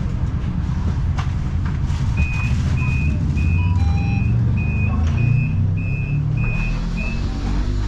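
City bus engine running with a low rumble, while a high electronic warning beeper sounds about nine times, roughly two beeps a second, starting about two seconds in.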